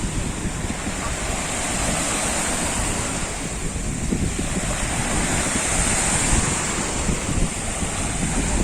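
Sea surf breaking and washing steadily on a pebble shore, with wind buffeting the microphone as a fluttering low rumble.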